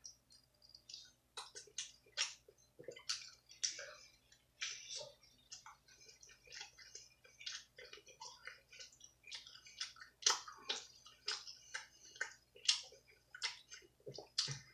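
A person chewing pizza with wet, open-mouthed smacks and clicks, an irregular run of several moist smacks a second.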